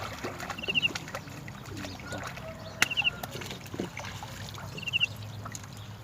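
A bird's short, quick trilled call of four or five high notes, repeated about every two seconds, over a low steady background hum with scattered small clicks.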